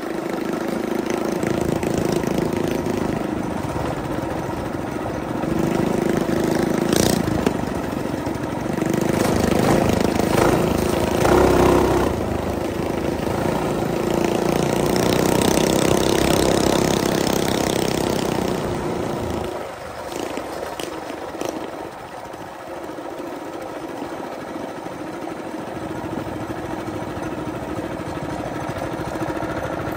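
Coleman BT200X mini bike's small single-cylinder engine running under throttle while riding. About two-thirds of the way in the engine note drops as the throttle comes off, and it keeps running lower and quieter after that.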